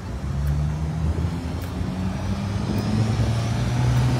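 A motor vehicle engine running close by: a low, steady drone that rises a little in pitch and grows louder, over street noise.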